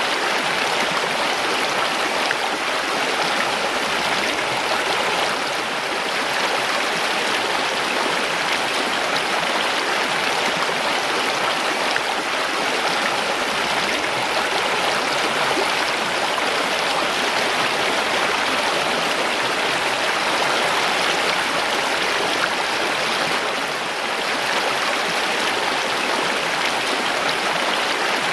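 Mountain stream rushing and splashing over rocks: a steady, dense water noise, at its fullest in the mid-to-upper range.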